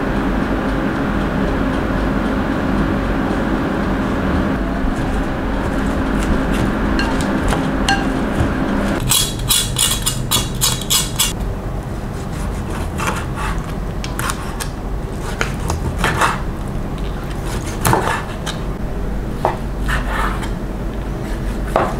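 Dressing poured over shredded salad vegetables gives a steady sound for about nine seconds. Then a knife saws through the charred crust of a grilled pork slab with a quick run of crisp crackles, followed by scattered knocks of the blade chopping down onto a wooden cutting board.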